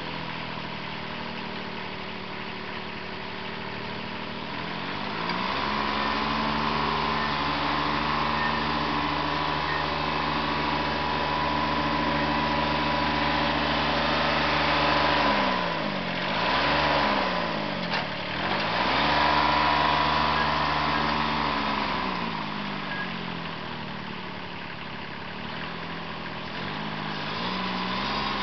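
Compact tractor engine running: idling, then revved up about five seconds in and held, dipping briefly twice past the middle, and dropping back to idle a few seconds before the end.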